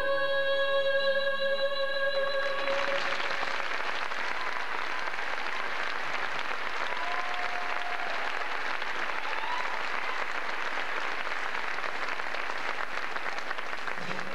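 A held choral chord ends about two and a half seconds in, and a large audience breaks into steady applause.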